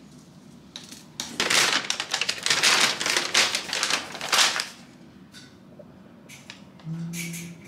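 A large folded paper instruction leaflet being unfolded and shaken open, with loud crinkling and rustling for about three seconds. Near the end, a brief low hum.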